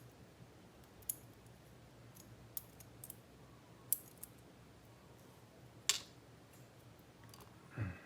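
Small sharp clicks of tweezers and tiny lock parts (pins and springs) being handled during a lock's disassembly: half a dozen separate clicks, the loudest about six seconds in.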